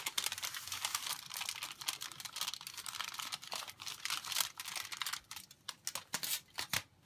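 Aluminium foil crinkling and crackling as dried liquid latex is peeled up off it, a dense run of small crackles with no pauses.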